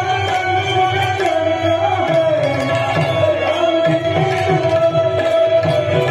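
Live Gujarati santvani bhajan music: a melody that bends and slides in pitch over a steady tabla rhythm.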